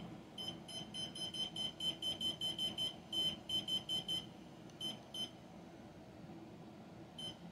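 Short, high electronic beeps from an EDUPLINK 3D LED wall clock: a fast run of about six a second for some four seconds, then two single beeps and one more near the end. These are the clock's key-press beeps as its alarm time is stepped.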